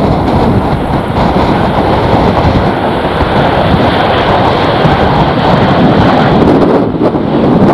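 Strong gusty wind buffeting the microphone: a loud, steady rushing roar.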